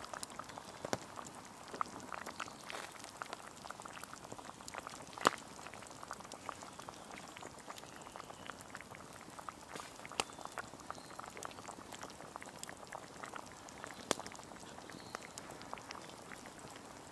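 Lamb stew simmering in a clay tagine, a soft steady bubbling full of small pops, with a few sharper pops, the loudest about five seconds in.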